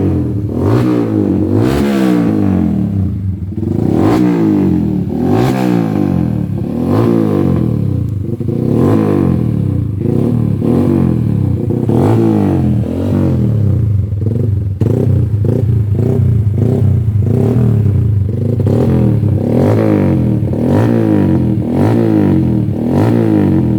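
Yamaha MX King motorcycle's single-cylinder four-stroke engine, bored out to 180 cc and fitted with a new exhaust, revved in quick throttle blips about once a second. The revving is a test during the CO (fuel mixture) setting, meant to stop the engine coughing and stumbling after the exhaust change.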